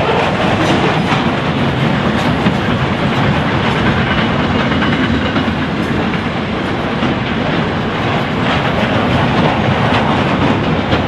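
Freight train wagons rolling past: a steady rumble of steel wheels on rail, with clicks as the wheels cross the rail joints.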